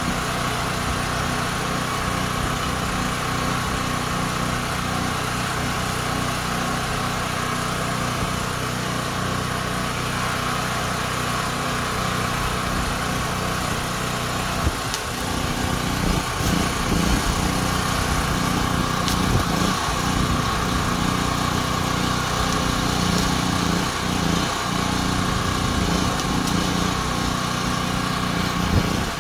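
Portable gasoline generator engine running steadily. About halfway through the sound becomes slightly louder and busier.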